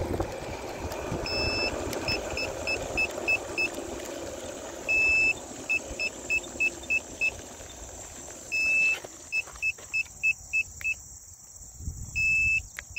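Electric scooter beeping in a repeating pattern: one long high beep followed by about six short quick beeps, four times over. Under the first part runs a low rumble of motor and riding noise that dies down about eight seconds in.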